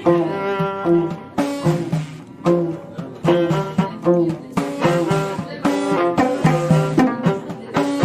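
Instrumental passage of traditional Amazigh music: string instruments playing a melody in quick, regularly struck notes, with no singing.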